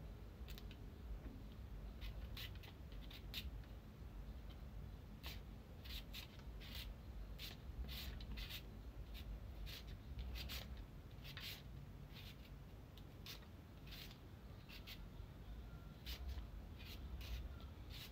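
Hand-held julienne shredder drawn along a raw carrot, cutting it into strips: a run of short, faint scraping strokes at an uneven pace, fewer for a few seconds past the middle.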